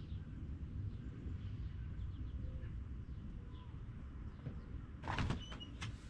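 Low steady background rumble with faint bird chirps, then a quick run of clicks and knocks about five seconds in.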